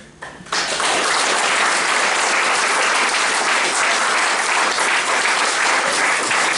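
Audience applauding, starting suddenly about half a second in and going on steadily.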